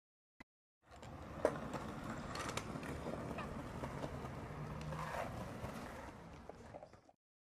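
Small hard wheels rolling over asphalt, a low rumble with scattered clicks and scrapes, starting about a second in; a sharp click comes about half a second later.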